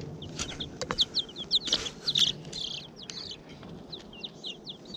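Two-week-old Rhode Island Red chicks peeping over and over, many short high chirps that slide down in pitch, several a second. A few sharp knocks sound about one to two seconds in.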